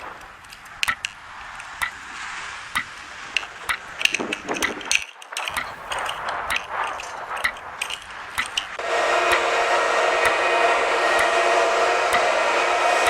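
Edited sound collage: scattered sharp clicks and clinks over a faint hiss, then about nine seconds in a steady whirring, hair-dryer-like noise with a buzz of held tones comes in and holds.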